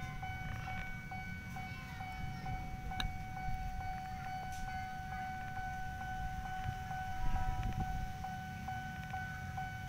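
Level crossing warning bell ringing steadily at about two dings a second, the signal that a train is approaching, over a low rumble of wind and traffic.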